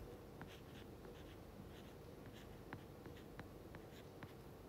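Faint taps and light scratches of a stylus writing on a tablet's glass screen, a dozen or so short ticks scattered over low room hiss.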